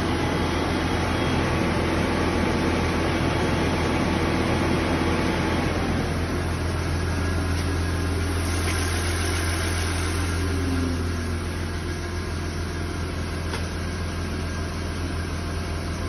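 Audi A8's electric radiator cooling fan running hard under a diagnostic output test, a loud steady rush of air over a low hum that eases slightly about six seconds in and again near eleven seconds. The fan blowing on command shows that the fan and its wiring work.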